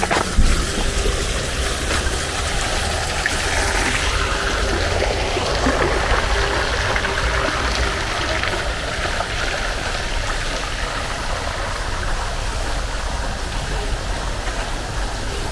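Steady rushing outdoor noise with a deep low rumble, and one short knock about half a second in.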